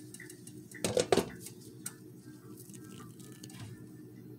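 A glass saucepan lid with a steel rim set down on a metal pot with a brief clatter about a second in, covering the cooking corn dough so it can steam. Faint light ticks follow.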